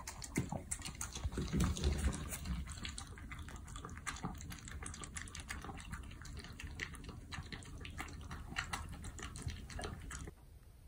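Shih Tzu eating soaked kibble from a stainless steel bowl: quick, wet lapping and chewing that cuts off suddenly near the end.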